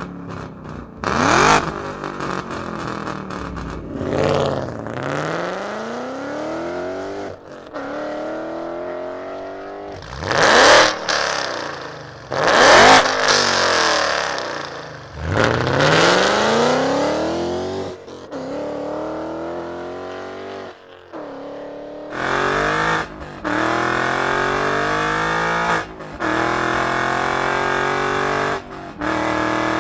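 Ford Mustang GT's 5.0-litre V8 through Borla 3-inch S-Type and ATAK exhausts with long-tube headers, heard in a string of short clips. It revs repeatedly with the pitch climbing and falling, then from about two-thirds in holds a steadier, level note that breaks off every few seconds.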